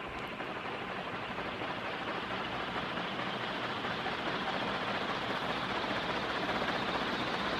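Banvil Envirofan Silver Line 60-inch straight-bladed industrial ceiling fan running, its blades pushing a steady rush of air that grows gradually louder as the fan comes up to speed.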